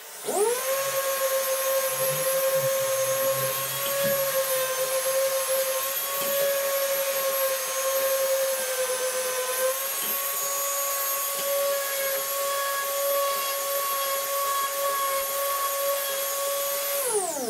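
Electric random orbit sander sanding a wooden board: the motor spins up with a brief rising whine, runs at a steady pitch, then winds down with a falling tone near the end.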